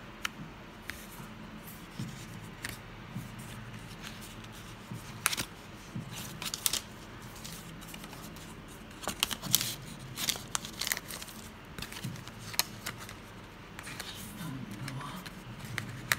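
Paper leaflets and a thin cardboard sleeve from a smartphone box being handled and flipped through: scattered sharp clicks, taps and rustles of card and paper, busiest in the middle.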